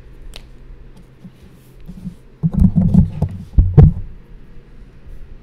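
Handling noise: a cluster of loud, low thumps and rumbles with a few sharp knocks, about two and a half seconds in and lasting under two seconds, as the drawing paper is shifted on the desk.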